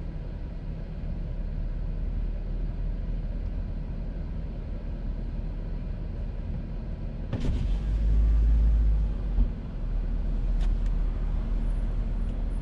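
Low, steady rumble of a car running at a crawl, heard from inside the car. About seven seconds in, a sharp knock starts a louder low rumble lasting a couple of seconds, and a single click follows about three seconds later.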